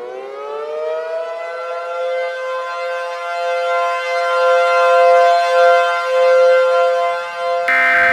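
Civil defense siren finishing its wind-up in the first second, then holding two steady pitches together while its level swells and dips. Shortly before the end, a sudden harsh buzzing burst cuts in over it.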